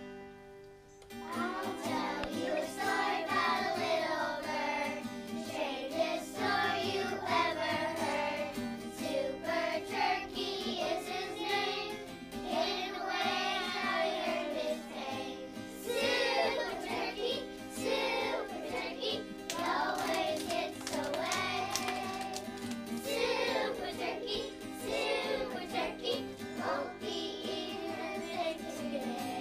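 A group of young children singing a song together to acoustic guitar accompaniment; the singing comes in about a second in.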